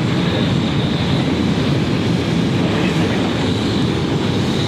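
Jet airliner engines giving a steady low rumble with a faint, steady high whine.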